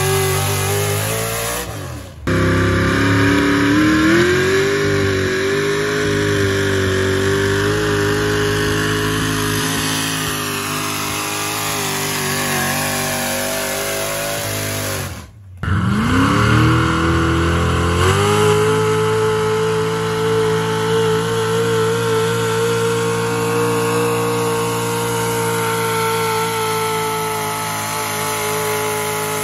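Modified pulling trucks' engines running at full throttle under load as they drag a weight-transfer sled down a dirt track, with several runs cut together. Abrupt cuts come about two seconds in and about halfway; after each, the engine rises in pitch for a couple of seconds and then holds a steady high note.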